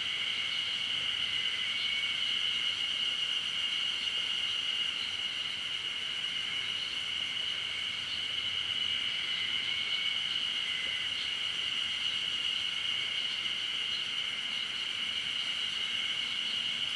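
Steady insect chorus: a continuous high-pitched drone that holds without a break, with a fainter, lower-pitched band beneath it.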